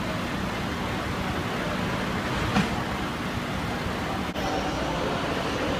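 Steady running of a fire engine's idling diesel engine amid street noise, with one brief bump about two and a half seconds in.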